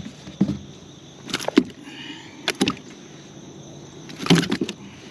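A hooked bass thrashing beside a kayak: a string of sharp splashes and knocks at irregular intervals, with a cluster of them near the end.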